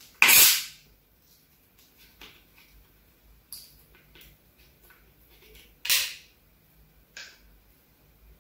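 Carbonation hissing out of a plastic Fanta soda bottle as its screw cap is twisted loose: a loud hiss about a quarter second in, a smaller puff in the middle, and another loud hiss about six seconds in, then a short one near the end.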